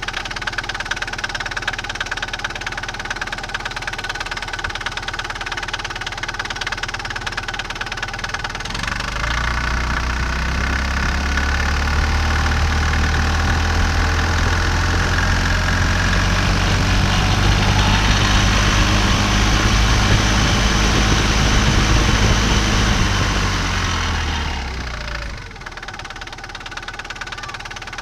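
Microcar Virgo 3 microcar engine idling, then revved up about a third of the way in and held at higher speed before dropping back to idle near the end. It runs with the strange noise the owner has heard since the drive belt was replaced.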